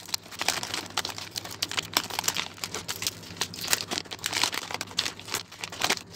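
Clear plastic bubble wrap crinkling and rustling as hands pull it off a small circuit board. The crackles are irregular and stop near the end.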